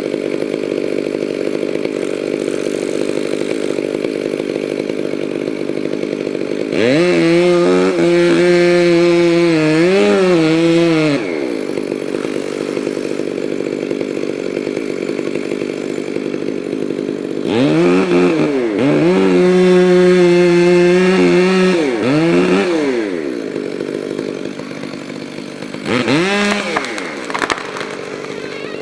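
Stihl 500i chainsaw running at low speed, opened up to high revs three times: about 7 seconds in, about 18 seconds in, and briefly near the end. The pitch wavers while held high.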